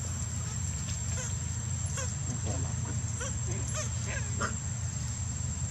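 Newborn long-tailed macaque crying in a string of short, high squeaks, from about a second in until past four seconds, over a steady low background rumble.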